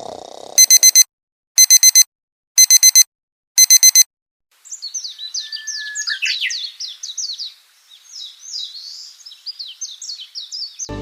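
An electronic alarm beeping in four groups of four quick high beeps, about one group a second, then stopping; after a short gap, birds chirping rapidly and continuously until the end.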